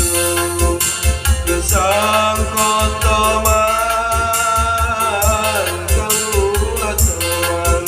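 A song with a singer holding one long note over a steady drum beat; the voice slides up into the note about two seconds in and falls away about five seconds in.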